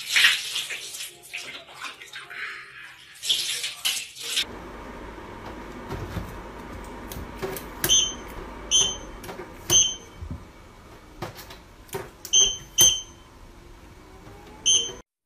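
Water splashing and sloshing in a tub as a cat paws at it. Then, about four seconds in, an air purifier's touch button gives about six short electronic beeps as a cat presses it with its nose, along with a few soft clicks over the machine's low hum.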